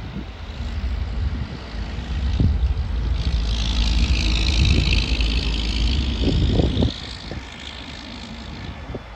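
A John Deere 672 motor grader's diesel engine running as it works past close by. It builds to a peak in the middle, with a hissing rush over the engine rumble, then drops off sharply near the end.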